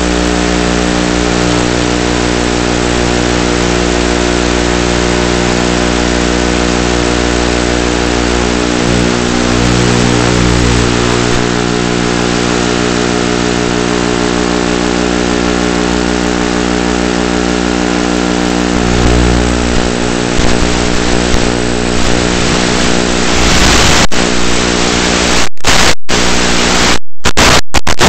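Audio from the Zohd Drift's onboard analog FPV camera and video link: a loud, steady buzzing drone with many layered tones. After about 23 seconds, once the plane is flying, it turns rough and breaks up into hiss, with several sudden dropouts of the radio signal.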